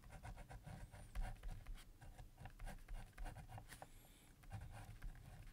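Pen writing on paper: a faint, quick run of short scratching strokes as a word is written out by hand.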